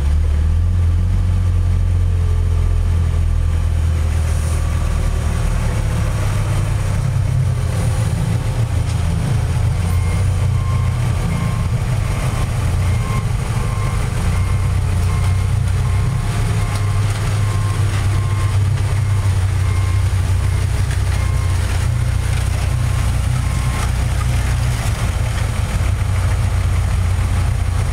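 Steady low rumble with no break in level. Through the middle of the stretch, a run of short, evenly spaced high beeps sounds over it.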